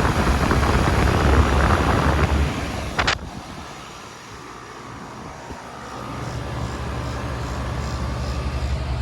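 Early 2010s Goodman packaged heat pump running in cool mode: a loud rush of air with a low hum for the first couple of seconds, a sharp click about three seconds in, then a quieter stretch before a steady low hum builds again from about six seconds in.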